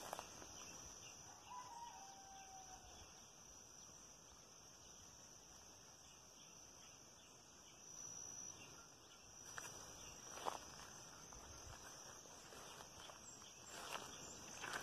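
Quiet rural dusk ambience: a steady high insect trill, with a distant rooster crowing once about a second and a half in. A few footsteps and rustles sound in the vegetation past the middle and near the end.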